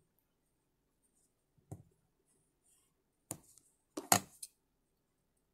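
Scissors snipping sewing thread at felt: a soft knock about two seconds in, then a sharp snip and a quick run of two or three snips near the end.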